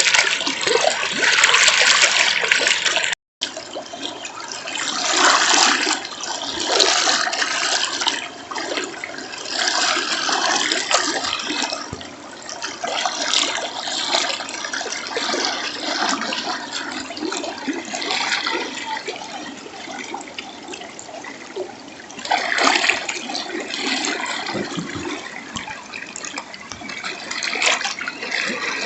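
River water rushing, a steady noise that swells and eases every few seconds. It cuts out for an instant about three seconds in.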